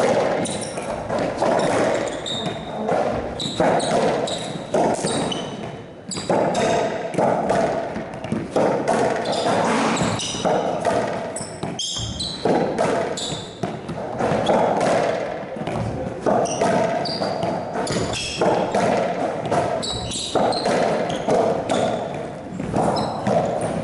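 Racquetball rally in an enclosed walled court: the rubber ball cracking off racquet strings and ringing off the walls and floor again and again, each hit echoing, with court shoes squeaking on the floor between shots.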